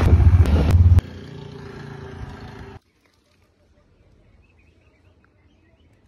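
Motorcycle tricycle ride: loud, low engine and road noise for about a second, then a quieter steady hum that cuts off abruptly a little before the halfway point, leaving only faint background sound.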